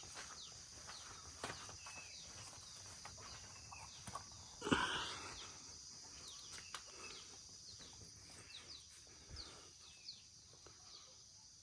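Rural outdoor ambience: a steady high insect drone with many short, scattered bird chirps, and one louder brief noise about five seconds in.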